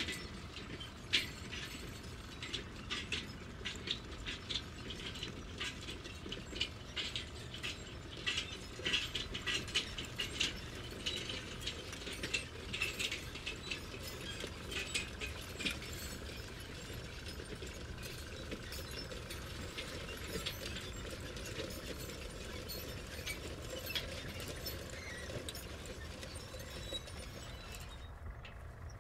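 Clicks from the ratcheting, toothed hinge joints of a plastic Duplo excavator arm as it is snapped on and swung. The clicks come thick and fast through the first half and grow sparse later.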